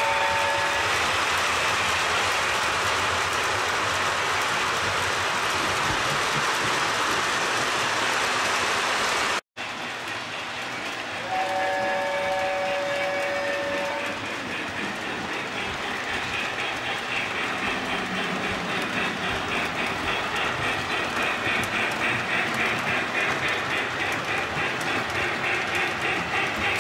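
Lionel model train running on its track: a steady rumble and rattle of wheels on the rails. A chord-like steam whistle sounds briefly at the start and again for a couple of seconds just before the halfway point. Later the running takes on an even, rhythmic pulse.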